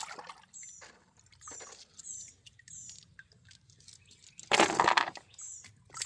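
Water sloshing and splashing as stones are washed in a hand sifter, in several short bursts with the loudest splash about four and a half seconds in. A high, short chirp repeats in the background.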